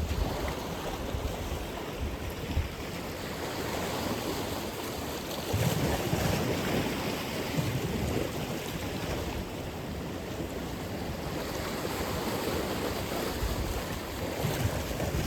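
Atlantic Ocean waves breaking and washing ashore, a steady rush of surf with a heavier surge about five and a half seconds in and another near the end. Some wind noise on the microphone.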